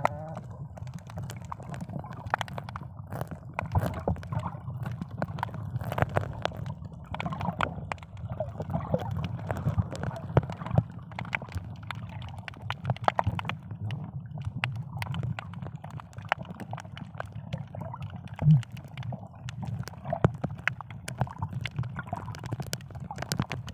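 Underwater ambience from a camera held under water while snorkeling: a muffled low rush of moving water with many scattered sharp clicks and crackles, and one brief louder low sound about three-quarters of the way through.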